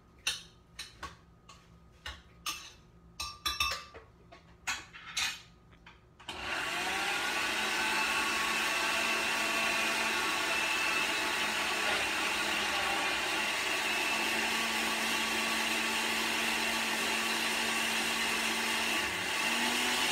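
A run of short clicks and knocks, then a countertop blender motor spins up about six seconds in and runs as a loud steady whir, puréeing watermelon chunks and lime juice into a liquid.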